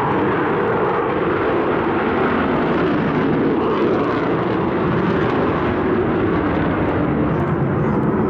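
Avro Vulcan XH558's four Rolls-Royce Olympus turbojet engines running, a loud, steady jet noise as the delta-wing bomber banks overhead during its display.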